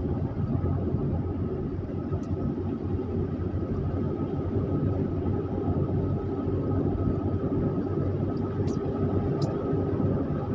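Car engine and tyre noise heard from inside the cabin while driving along a mountain road, a steady drone with no change in pitch. Two faint clicks come near the end.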